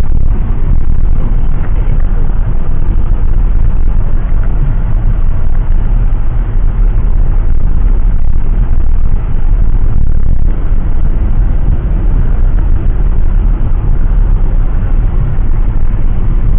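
Loud, steady rumbling vehicle noise heard from inside, deepest at the bottom, with no letting up or change. It is loud enough to overload the microphone.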